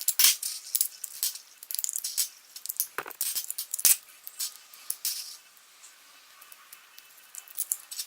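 Metal clicks and rattles of a Glock 19 Gen5 pistol being taken down by hand to swap its trigger connector: a few sharp clicks, the loudest about three and four seconds in, with lighter rattling of parts between.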